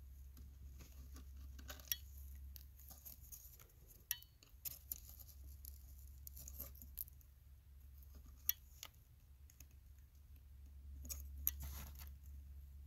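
Faint, irregular clicks and scrapes from a caulking gun as foundation sealant is squeezed out around a PVC pipe, over a low steady hum.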